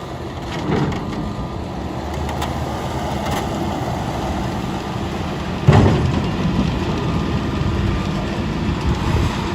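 Machinery running steadily, with a sudden louder knock a little under six seconds in.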